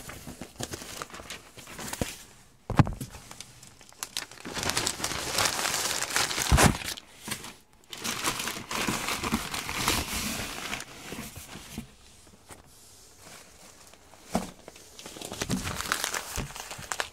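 Sheets of newspaper crumpling and rustling as they are stuffed into a cardboard box, in stretches of a second or two, with a few sharp knocks against the box.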